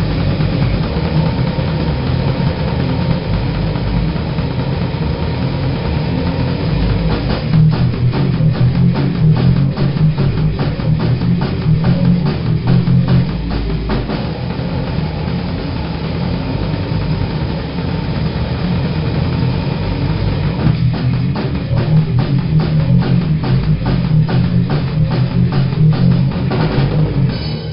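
Grindcore band playing: fast drum kit with distorted electric guitar and bass. From about a quarter of the way in the drumming turns into rapid, dense strikes, and the music cuts off suddenly at the very end.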